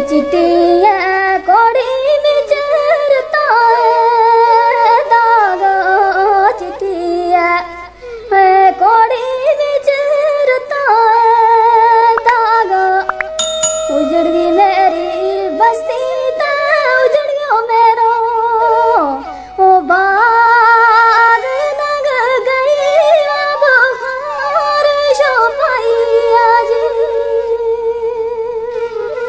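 Gojri folk song music: a melody of long held, wavering notes over a steady accompaniment.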